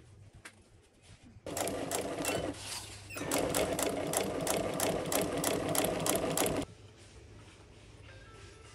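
Industrial sewing machine stitching a leather upholstery panel. It runs in two stretches, a short one starting about a second and a half in and a longer one after a brief pause, then stops about two seconds before the end.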